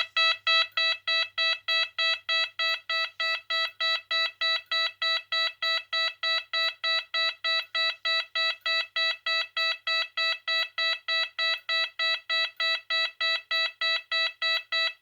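AE&T T105N fire alarm sounder sounding its tone no. 15: a loud, steady train of short beeps at one fixed pitch, about three a second.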